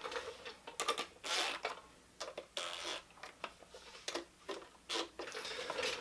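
Scattered short clicks, clinks and rattles of a cordless drill and metal bolts being handled at an engine's timing cover, with no steady motor run.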